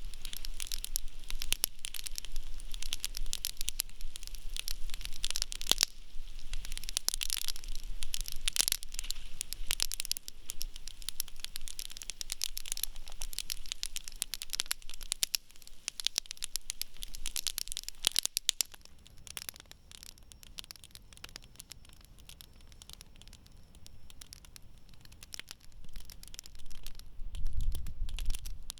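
Wood campfire crackling and popping, dense with sharp snaps for the first two-thirds, then thinning to sparser, quieter crackles. A low rumble comes up near the end.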